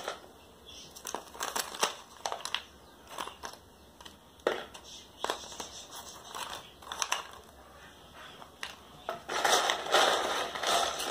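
A thin clear plastic cup crinkles and loose chunky potting medium crunches as an orchid seedling is pressed into it by hand and with a stick. The crackles come irregularly, with a longer, denser stretch near the end.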